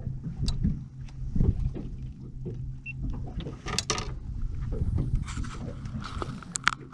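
Boat motor running with a steady low hum, with scattered knocks and rustles from handling in the boat.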